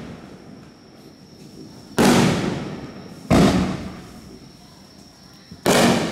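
Aerial fireworks bursting overhead. There are three sharp bangs, the first about two seconds in, the next just over a second later and the last near the end, each trailing off over about a second.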